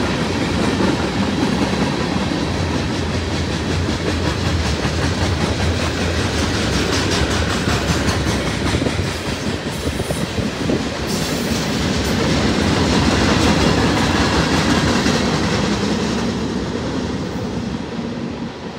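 CSX mixed freight train's tank cars and covered hoppers rolling past with steady wheel-on-rail noise, fading near the end as the last cars pull away.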